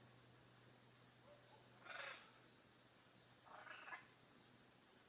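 Faint forest ambience: scattered short bird chirps and downward-gliding calls over a steady high whine, with two slightly louder calls about two seconds and nearly four seconds in.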